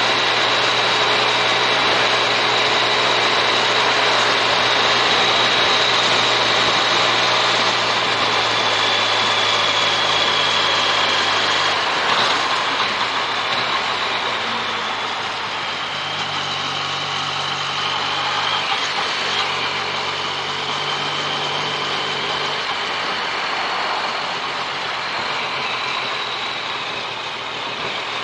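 Yamaha MT-09 Tracer's inline-three engine running at cruising speed under a heavy rush of wind and road noise, heard from a camera mounted on the motorcycle. The engine note holds steady, then changes pitch several times from about halfway through as the throttle is eased and opened again.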